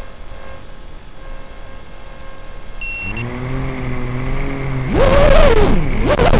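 Brushless motors of a 5-inch FPV racing quadcopter with three-blade props. A short beep comes about three seconds in, and then the motors start spinning at a steady idle hum after arming. Around five seconds in they throttle up loudly, and the whine rises and falls in pitch as the quad takes off.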